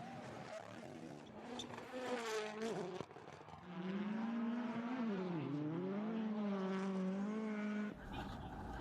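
Rally car engine running at high revs with a buzzing note. The pitch drops briefly about five seconds in, then climbs back and holds steady. The sound changes abruptly twice, as if cut between separate passes.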